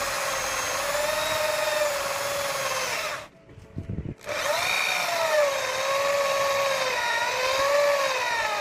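Corded electric drill with a hole saw cutting into a block of wood, its motor whine dipping and recovering in pitch as the cutter bites. It stops about three seconds in, with a low thump in the short pause, then starts again a second later.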